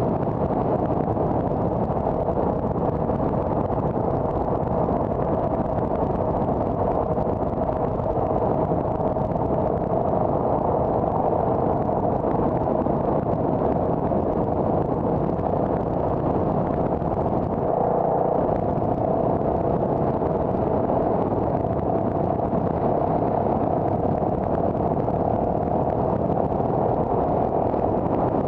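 Car being driven: a steady drone of engine and tyre noise heard from inside the cabin, with a mid-pitched hum that wavers slightly but never breaks.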